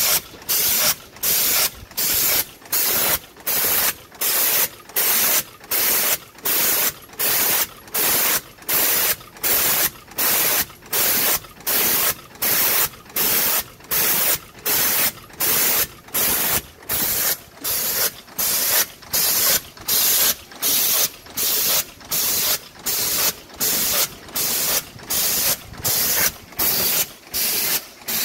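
Yeswin YBP-10B5S bolt parts former, a multi-station cold forming header, running in production. Each forming stroke makes a loud, noisy burst, in a steady rhythm of about 1.4 strokes a second, which matches the machine's rate of about 82 pieces a minute.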